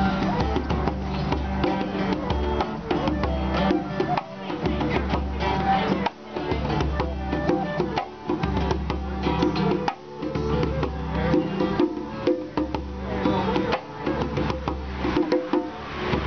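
Live acoustic music: a djembe hand drum beating a steady rhythm under an acoustic guitar, with a flute playing the melody.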